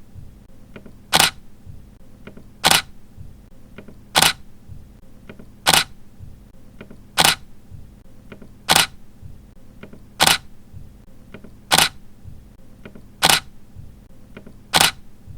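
Camera shutter clicking, one sharp release about every second and a half, ten in all, with faint softer ticks between the releases.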